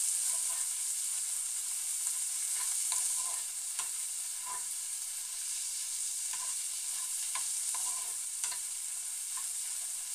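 Chopped onion and chillies sizzling in hot oil in a non-stick frying pan on a just-lowered flame, while a metal spatula stirs them, with scattered light scrapes and taps of the spatula against the pan.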